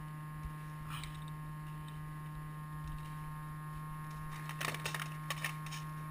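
Steady electrical hum, with a faint click about a second in and a quick run of clicks and knocks in the last part.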